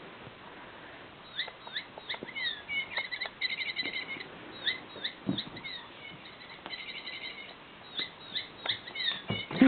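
Squeaky toy mouse squeaking in many short high chirps and quick trills, with soft knocks as it is batted and tossed about by a cat.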